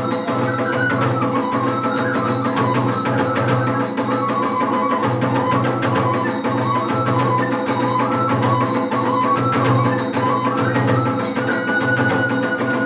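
Iwami kagura hayashi music playing: a wavering bamboo-flute melody over continuous drumming, with dense metallic strokes from the hand cymbals.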